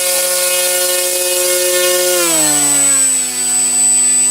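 Brushless electric motor and propeller of an RC flying wing running at full throttle on a 3-cell LiPo, a loud steady whine drawing about 350 watts. About halfway through, the throttle is pulled back and the whine drops to a lower, steady pitch.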